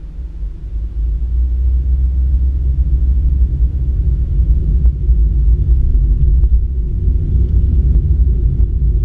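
Low road and engine rumble of a car heard from inside the cabin as it moves off and drives on. The rumble grows louder over the first second or so, then holds steady.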